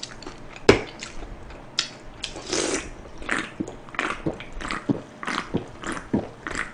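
A person drinking cola straight from a can, gulping: a run of short swallows about every half second, after a single sharp click less than a second in.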